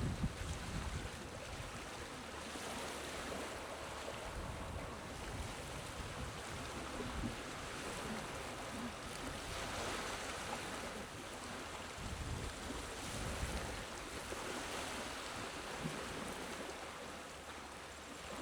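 Small, gentle sea waves washing onto the shore, the wash swelling and easing every few seconds.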